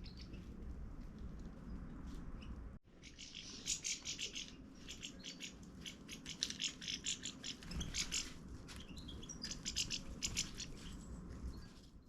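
Small birds chirping: many short, quick high-pitched chirps in clusters, starting about three seconds in after a brief cut in the sound.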